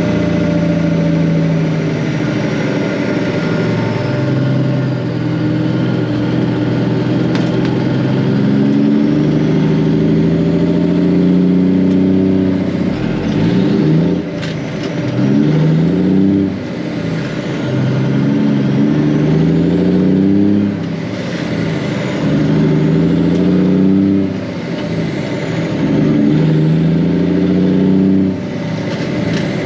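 Ford L9000 big-rig's Cummins diesel engine pulling hard and climbing in pitch, then easing off and picking up again several times, a few seconds apart, as the truck accelerates up through its gears.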